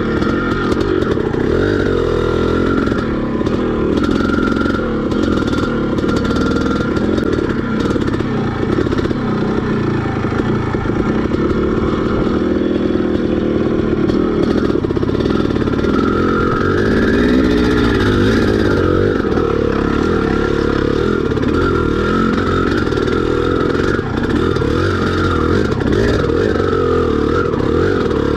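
Dirt bike engine running while riding a trail, its pitch rising and falling continually with the throttle.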